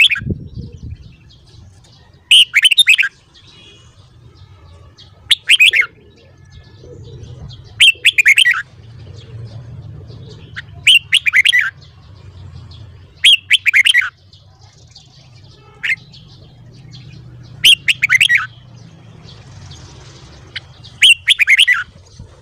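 Red-whiskered bulbul singing short, loud whistled phrases, one about every two and a half to three seconds, eight in all, over a faint low hum.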